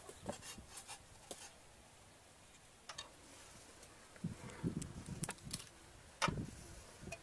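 Light knocks and clatter of cookware being handled: a few scattered clicks at first, then a run of dull knocks from about four seconds in and a sharper knock near six seconds.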